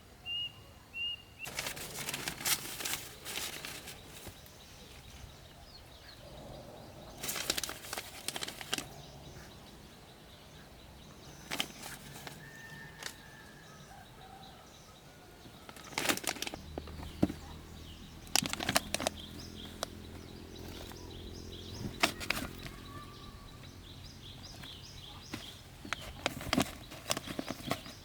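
Bursts of rustling and clicking handling noise, coming in several groups, with a few short bird chirps just after the start. A low steady hum joins a little past the middle.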